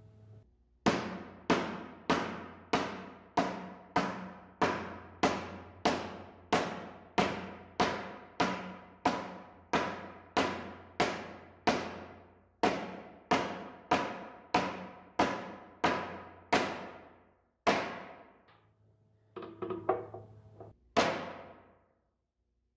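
Hammer striking a pine block laid over the corner of a hardwood box, driving a hidden (mitred) dovetail joint closed. The blows are steady and even, about three every two seconds, each ringing briefly. After a pause there is a short, lighter clatter and one last hard blow near the end.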